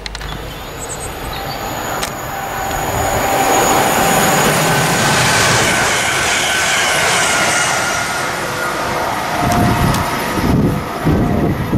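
Passenger train passing close through the station at speed. The rush of wheels on rail builds over the first few seconds and peaks in the middle with a couple of steady tones over it. Near the end it gives way to gusty wind buffeting the microphone.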